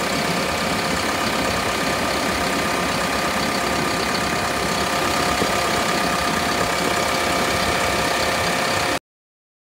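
Caterpillar CS66B vibratory soil compactor's diesel engine idling steadily, heard up close in the open engine compartment, with a steady whine over the running. The sound cuts off abruptly near the end.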